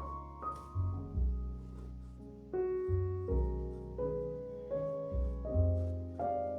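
Background piano music: a slow, gentle melody over low bass notes.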